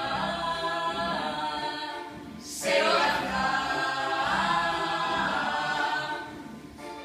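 Unaccompanied singing by several voices in two phrases. The first fades out about two seconds in, and a louder one starts just before three seconds in and dies away near the end.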